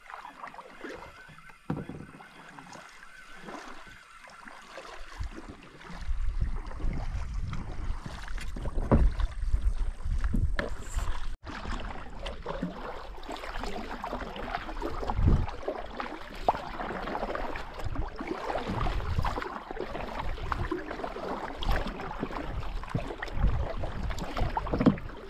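Kayak paddles dipping and splashing in calm river water as the boats move along. A low rumble joins in about six seconds in.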